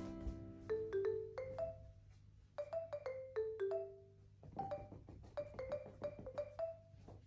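Background music: a sparse, light melody of single mallet-percussion notes that ring and fade, with short pauses between phrases.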